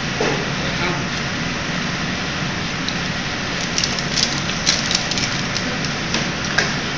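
Steady rushing hiss of kitchen background noise, with a few sharp clicks and taps of utensils in the second half.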